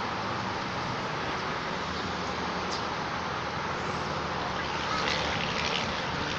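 Steady outdoor background noise, with a few faint brief higher sounds about five seconds in.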